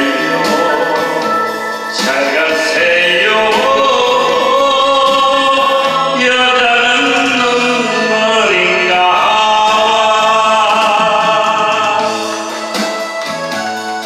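A man singing a Korean trot song into a microphone over backing music; his voice stops about twelve seconds in and the backing carries on alone.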